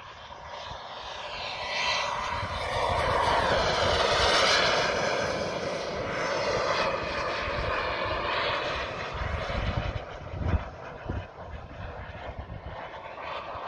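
Turbine engine of a 2.5 m radio-controlled F-16 model jet in flight: a steady rushing jet noise that grows louder to a peak about four seconds in, where a thin high whine drops slightly in pitch as it passes, then slowly fades.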